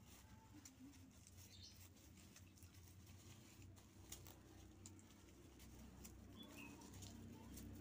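Near silence: faint crackle and ticking of dry shallot stalks being handled, with two brief faint bird chirps, about one and a half seconds in and again past the six-second mark.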